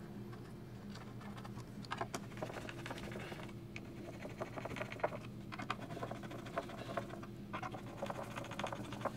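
Hand screwdriver driving the woofer's mounting screws into a speaker cabinet: irregular clusters of small clicks and scratches as the screws turn, over a steady low hum.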